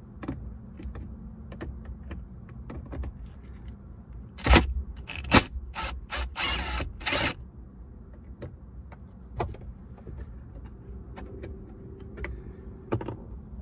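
DeWalt 20V cordless driver backing out a dash screw in a few short runs, about four and a half to seven seconds in, the longest with a high motor whine. Scattered clicks and knocks of the socket and hands on the dash plastic come before and after.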